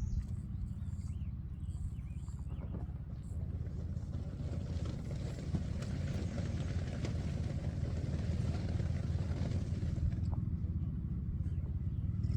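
Steady low motor hum, with a hiss laid over it from about four to ten seconds in.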